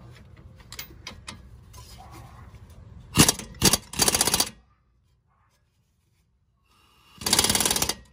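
Air impact wrench hammering in two short bursts, the first about half a second long after a couple of sharp knocks, the second about a second long near the end, breaking loose the lower bolt of the rear strut.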